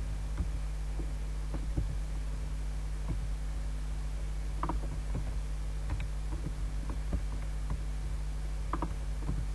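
Irregular clicks of a computer mouse and keys, a few of them in quick pairs, over a steady low electrical hum.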